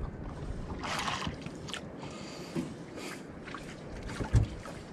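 Water sloshing against a small boat's hull with wind noise, and a single heavy thump on the hull near the end.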